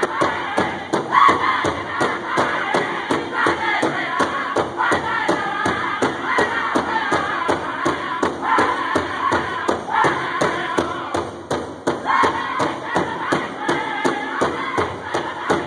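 Powwow drum group singing together while striking a large powwow drum in a steady beat, about three strokes a second.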